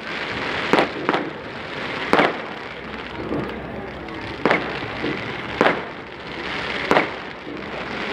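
Fireworks display: aerial rockets bursting overhead, about six sharp bangs at uneven intervals over a continuous background haze.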